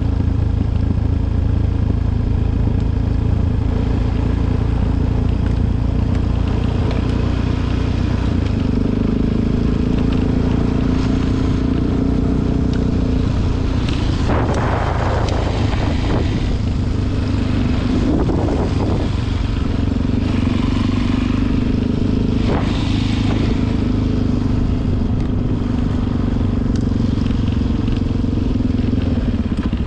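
Suzuki DR-Z400 single-cylinder four-stroke engine running steadily while riding, with heavy low rumble over it and a few louder rushes about halfway through.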